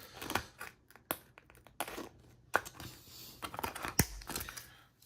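Thin aluminium sheet from an unrolled beer can crinkling and clicking as it is handled on a tabletop, with irregular sharp ticks and a duller knock about four seconds in.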